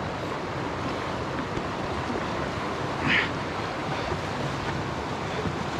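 Steady rush of flowing creek water. A brief, higher-pitched sound stands out over it about three seconds in.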